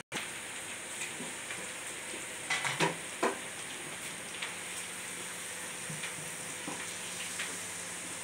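Hot oil sizzling steadily in a kadhai as pooris deep-fry, with a few short clatters about two and a half to three seconds in. The audio cuts out for an instant at the start.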